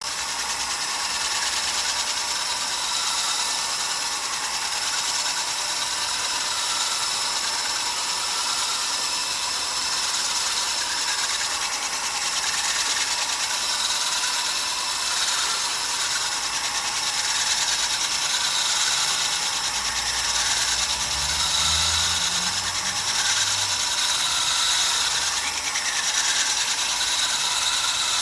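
Power polishing tool grinding the cut edge of a Takine granite gravestone slab: a steady, even rasping abrasion of stone. A faint low rumble joins it about two-thirds of the way through.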